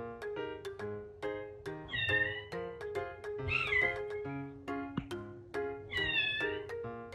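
Short-legged Munchkin kitten meowing three times behind a closed door, calling to its owner out of loneliness. Background music with plucked notes plays throughout.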